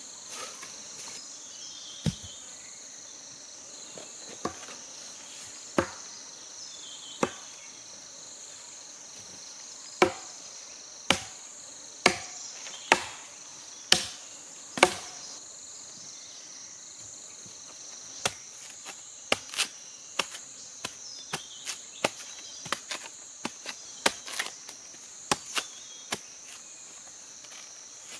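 A machete chopping through bamboo in sharp separate strikes, a run of heavy blows about one a second partway through, then lighter, quicker cuts. Insects buzz steadily in a high wavering note behind them.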